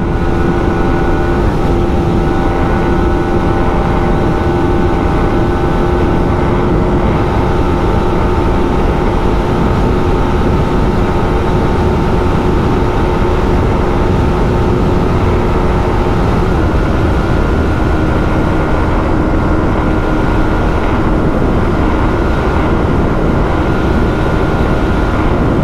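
Yamaha R15 M's single-cylinder engine running at a steady high pitch at sustained high speed, under heavy wind noise. The engine note drops slightly about two-thirds of the way through. The speed will not climb past about 132 km/h, which the rider takes for a lock or limit on the brand-new bike.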